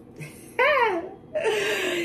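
A high-pitched voice giggling: a short squeal that rises and falls in pitch, then a longer, breathy drawn-out sound sliding slightly downward.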